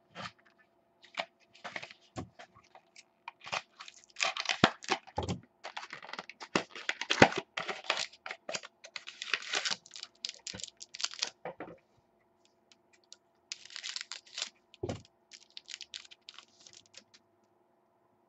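A trading-card pack being opened and handled: the wrapper crinkles and tears, and the cards slide and click, in dense runs of crackles. There is a short pause about twelve seconds in, then more crackling with one low thump.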